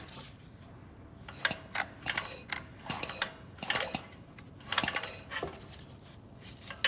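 Recoil starter of a Harbor Freight 2000-watt portable generator pulled several times in quick succession, each pull a short rattling clatter as the engine is turned over. The spark plug is out and grounded on the exhaust, so the pulls are a spark test for the new ignition coil and the engine does not fire.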